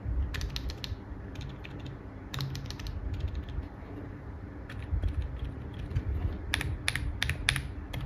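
Typing on a mechanical keyboard fitted with Akko Penguin silent switches: soft, muffled keystrokes in short flurries of several presses, with brief pauses between.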